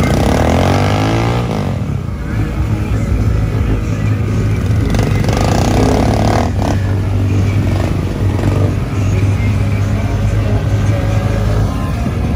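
Off-road vehicle engines running in mud, revving up near the start and again about halfway through over a steady low engine drone.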